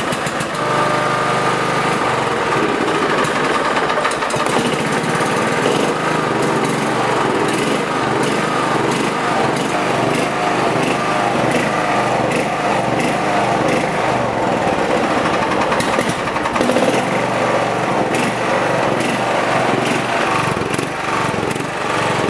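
Kawasaki FC420V overhead-valve engine on a John Deere 175 lawn tractor running just after a choked start, its speed surging up and down. The surging points to a fuel problem, usually a dirty carburetor.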